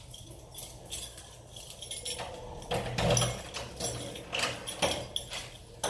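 Kitchen clatter: a string of knocks and light clinks as dishes and a cardboard pizza box are handled at the counter, loudest about halfway through.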